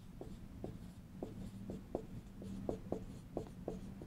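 Dry-erase marker writing letters on a whiteboard: a string of short, irregular taps and squeaks, about two or three a second, over a faint steady low hum.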